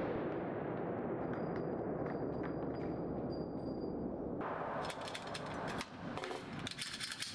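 Steady noise of an indoor shooting range, then from about four and a half seconds in a quick run of sharp metallic clicks and clatter as the emptied Glock pistol is handled after a mag dump.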